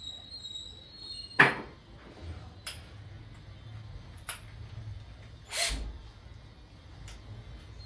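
A cordless drill being handled: five sharp clicks and knocks about a second and a half apart, the loudest about a second and a half in.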